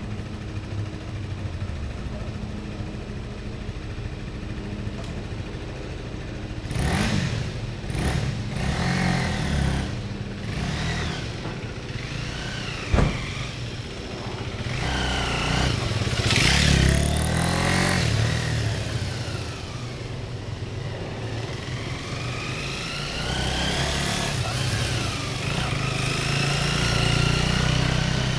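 MZ RT-125 two-stroke single-cylinder motorcycle running at a steady idle, then ridden with its revs rising and falling repeatedly. There is one sharp click about halfway through.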